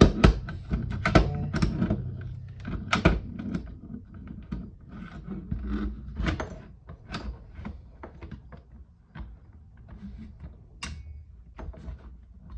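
Clicks, knocks and scrapes of a Hi-Capa airsoft pistol and 3D-printed plastic carbine kit parts being handled and pushed together, as the pistol is worked onto the kit's rails against its spring. The knocks are densest and loudest in the first three seconds, then come irregularly.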